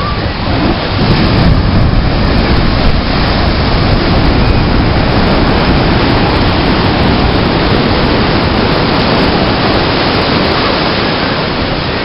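Big shore-break ocean wave breaking and its whitewater washing up the beach: a loud, steady rush of noise that builds about a second in and eases slightly near the end.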